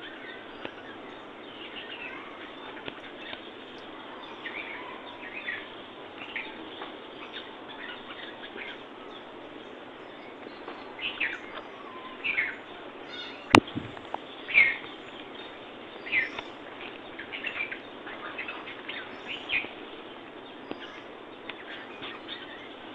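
Small birds chirping: many short, quick downward chirps, busier through the middle, over a steady background hiss. One sharp click about halfway through stands out as the loudest sound.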